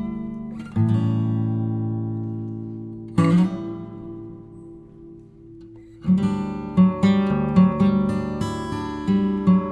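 Background music: acoustic guitar strumming chords, two slow strums left to ring and fade, then a quicker strummed rhythm from about six seconds in.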